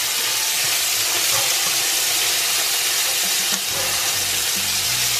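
Lobster tails frying in a nonstick pan: a steady, loud sizzle.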